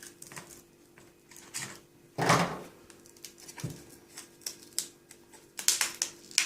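Scattered clicks, taps and scrapes of a pry tool working a cracked glass touch screen off a car sat-nav display, where it is stuck down with double-sided adhesive. A louder rasp about two seconds in and a quick run of clicks near the end.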